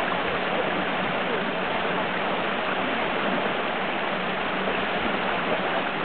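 Steady rush of a shallow stream tumbling over rocks at a small waterfall, churned by elephants splashing as they wade in it.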